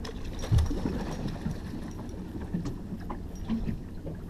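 Fishing reel being cranked to bring in a hooked fish, with faint irregular clicks over a steady low rumble of wind and water against the boat, and a thump about half a second in.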